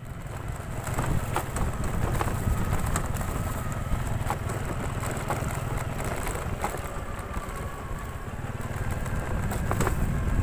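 Motorcycle engine running steadily under way on a dirt road, with scattered short knocks and rattles over it.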